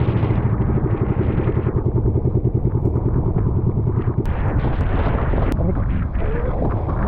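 Small boat engine running with a rapid, steady chug; the chugging grows less distinct in the second half.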